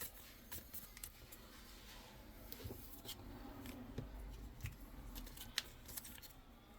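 Faint handling of a trading card being slid into a plastic card sleeve: soft rustling with scattered small ticks and clicks.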